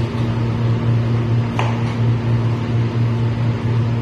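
A steady low hum, with a single knife cut through yardlong beans tapping the cutting board about one and a half seconds in.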